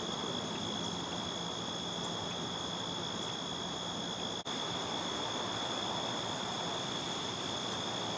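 Insects trilling in a steady, high, unbroken chorus over a steady background hiss.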